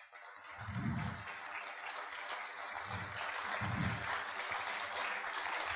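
Audience applauding, swelling within the first second and then holding steady, with a few voices sounding briefly within it.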